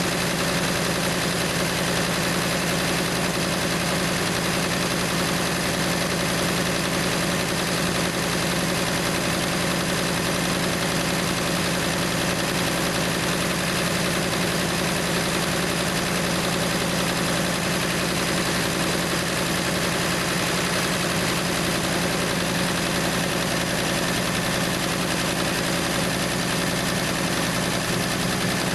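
A 1968 Plymouth Valiant's slant-six engine idling steadily, with no revving.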